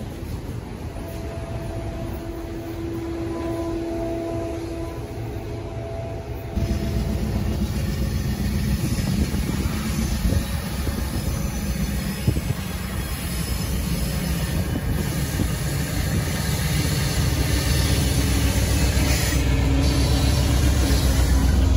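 A freight train of autorack cars rolls past with a steady rolling noise and a steady tone for a few seconds. About six seconds in this gives way to an Amtrak GE P42DC diesel locomotive approaching at the head of its passenger train, its low engine rumble growing louder toward the end.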